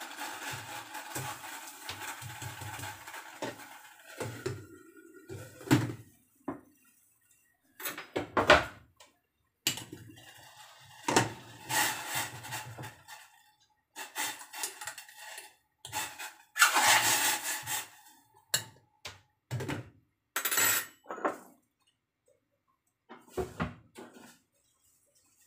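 Water at the boil hissing in a stainless-steel saucepan, then a metal fork clinking and scraping against the pan's sides and bottom in short clusters as a block of udon noodles is stirred apart. A lid clatters onto the pan near the end.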